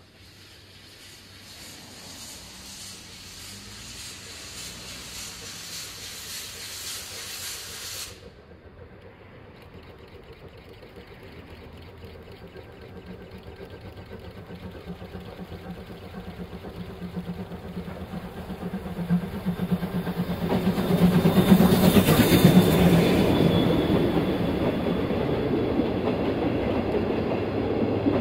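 A steam train (Chichibu Railway's Paleo Express, hauled by the C58 locomotive) approaches and grows steadily louder, its wheels clicking over the rail joints. It is loudest as the locomotive passes close by with a hiss of steam about three-quarters of the way through, then the coaches run past. A high, shrill buzz cuts off suddenly about eight seconds in.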